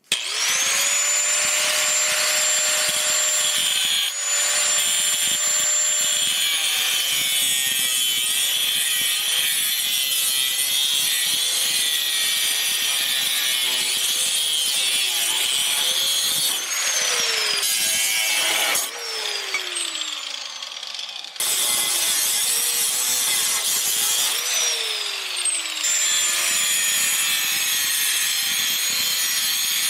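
Angle grinder with a cut-off wheel spinning up and cutting through steel frame bars. Its whine glides down in pitch several times as the wheel bites into the metal, and it eases off briefly about two-thirds of the way through before cutting on.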